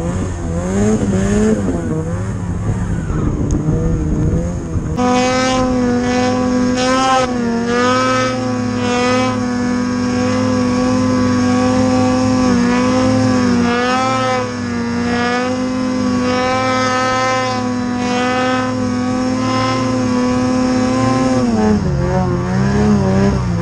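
Ski-Doo Summit 800 two-stroke twin snowmobile engine under load in deep powder. The revs rise and fall for the first few seconds, then rev up sharply about five seconds in and hold high and steady, dropping back near the end.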